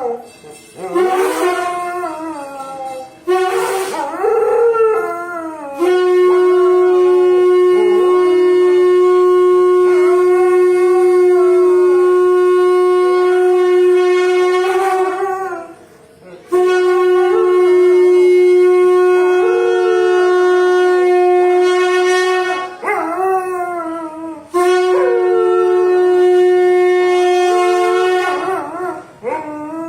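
Conch shell (shankh) blown in three long, steady blasts: the first about six seconds in, the last ending near the end. A dog howls along before and between the blasts.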